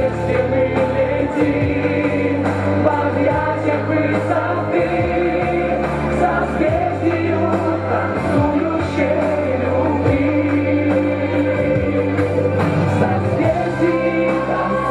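A pop song playing, a singing voice over steady bass and band accompaniment.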